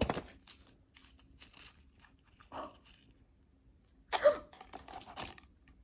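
Paper blind-box packet being handled and opened by hand, rustling and crinkling with small clicks, then a short excited laugh about four seconds in.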